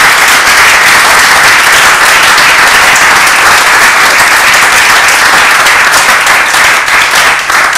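Audience applauding steadily, dying down at the very end.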